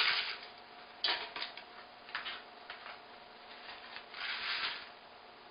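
Paper packets of dry instant onion soup mix rustling as they are opened and emptied, with a few light taps about a second in and a longer rustle near the end.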